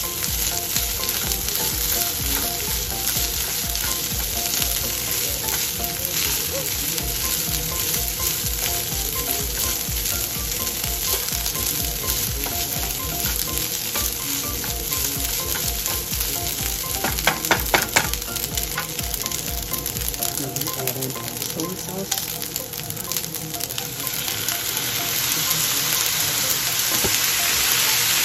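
Fried rice with peas and carrots sizzling in oil in a nonstick skillet while a spatula stirs and scrapes it through the pan. A little past halfway the spatula knocks a few times against the pan, then the stirring stops and the sizzle goes on alone, a bit louder near the end.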